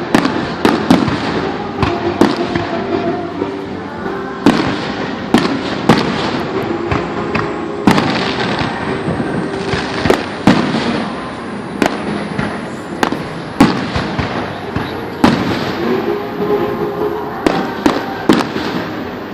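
Fireworks display: sharp bangs going off irregularly, about one a second, over continuous crackling.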